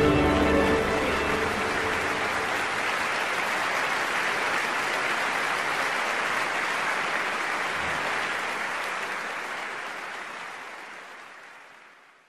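Concert audience applauding steadily in a hall, the clapping fading away over the last few seconds.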